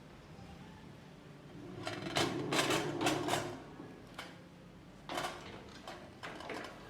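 Clattering and rattling of objects being handled, a dense run of knocks about two seconds in, followed by a few separate knocks.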